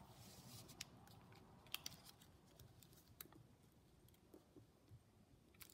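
Near silence with a few faint crackles and rustles of origami paper being folded and creased by hand.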